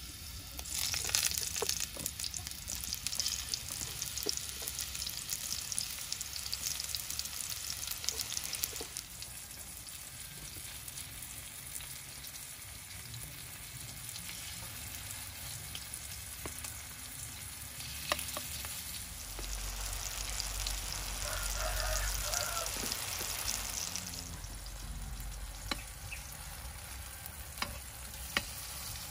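Eggplant slices frying in hot oil in a pan. The sizzle is loud over the first nine seconds or so, as the slices go into the oil, then settles to a softer steady sizzle with occasional sharp clicks.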